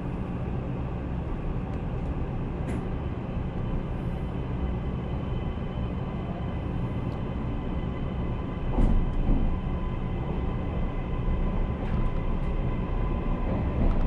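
Keisei Skyliner train car, heard from inside: a steady low rumble with faint steady whines above it. About nine seconds in a heavier rumble sets in as the train starts to pull out of the station.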